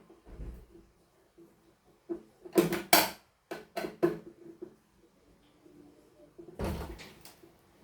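Clicks, knocks and clatter of hands and tools working on a device's case while its screws are being removed, with the loudest knocks about two and a half to three seconds in and a longer rattle near seven seconds.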